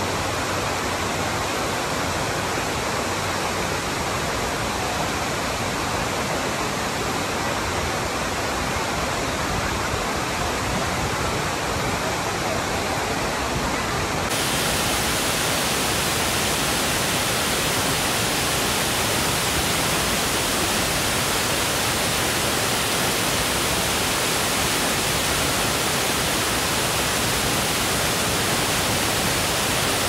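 Kapuzbaşı waterfall's falling water making a steady, even rush of noise. About halfway through, the sound suddenly turns brighter and hissier and stays that way.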